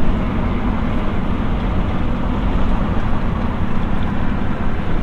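Steady drone of a V8 Toyota 4Runner at highway speed, heard from inside the cab: engine hum under tyre noise from its 35-inch Yokohama Geolander X-AT tyres on the asphalt.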